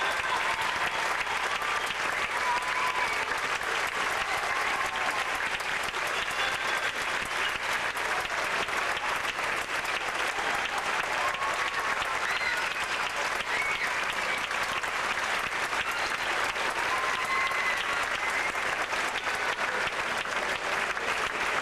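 Theatre audience applauding steadily, a dense unbroken clapping.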